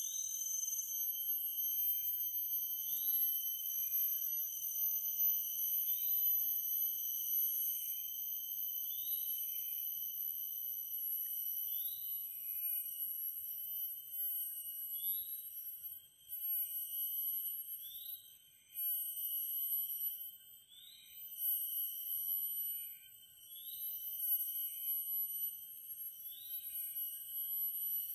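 Forest insects giving a continuous, high-pitched, shrill drone in several steady tones. A short rising chirp repeats every few seconds over it, and the drone dips briefly a few times in the second half.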